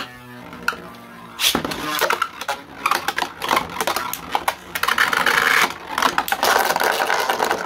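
3D-printed beyblades spinning and clashing in a plastic stadium. The tops whir, then from about a second and a half in there is rapid rattling and clacking as they strike each other and scrape along the stadium walls.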